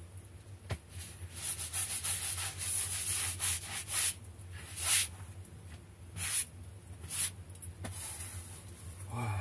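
Plastic packaging crinkling and rustling in short, irregular bursts as it is handled, for several seconds.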